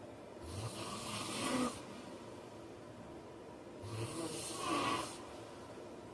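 A man snoring: two long snoring breaths about three and a half seconds apart, each building louder before it breaks off.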